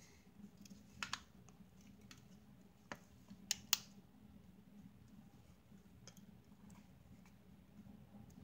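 Light plastic clicks and taps from handling a plastic action figure and its parts: a pair about a second in, one near three seconds, and a sharper pair around three and a half seconds in.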